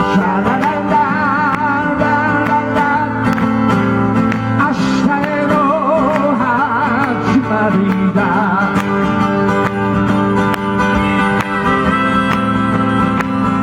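Live solo music: a man singing over his own acoustic guitar, with wavering held notes in the voice.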